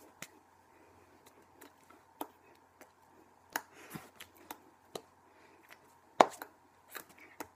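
Hands tapping and slapping against each other and the body while signing in American Sign Language, an irregular series of sharp taps with the loudest about six seconds in.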